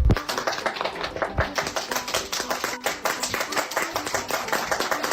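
Rapid, irregular clicking and tapping, several sharp strikes a second, with a low thump at the start and another about a second and a half in.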